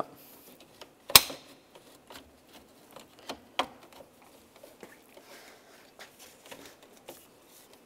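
Plastic bumper grille being pressed into its mounting clips: one sharp snap about a second in, then a few softer clicks and light plastic rustling as it is worked into place.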